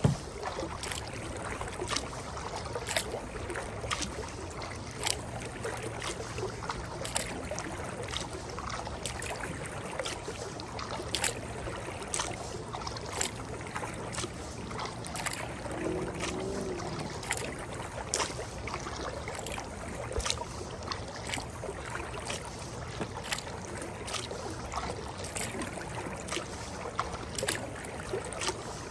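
Kayak paddle strokes dipping into the river about once a second, each a short splash over the steady rush of moving water.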